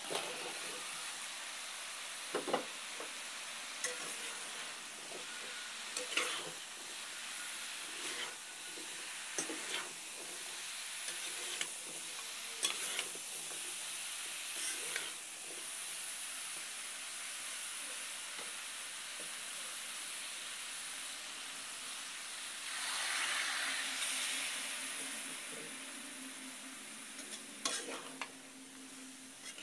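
Eggplant, potato and green vegetable pieces frying in oil and spice paste in a metal pot: a steady sizzle, with a spatula knocking and scraping against the pot as they are stirred, irregularly every second or two in the first half. The sizzle swells briefly about 23 seconds in.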